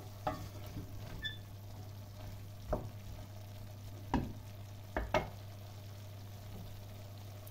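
Lamb and kenger (şevketi bostan) stems frying in a stainless steel pot with a light sizzle, stirred with a spoon. The spoon knocks against the pot about five times, most sharply around the middle.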